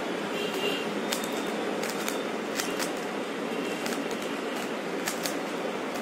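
Plastic Rubik's Cube being turned fast, its layers giving a scatter of quick clicks at uneven intervals over a steady background hiss.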